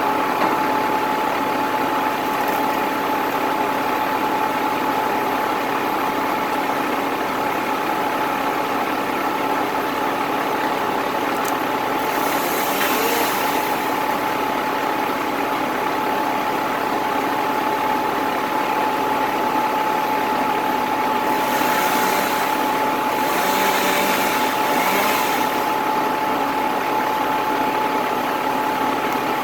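Crane truck's engine idling steadily, with a constant whine running over it. Bursts of hiss come in twice: about twelve seconds in, and again from about twenty-two to twenty-five seconds in.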